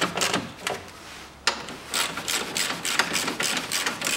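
Hand ratchet with a socket on an extension clicking in quick runs as a bolt is turned, with a single sharper click about a second and a half in.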